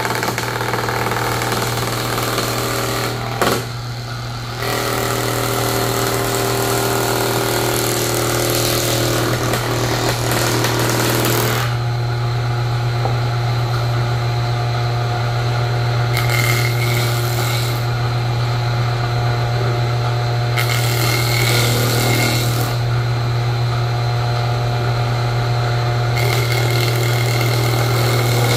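Large woodworking jointer-planer running with a steady hum, its freshly fitted blades cutting boards fed across the cutterhead. There is one long stretch of cutting noise over the first dozen seconds, then three shorter cuts, the last near the end.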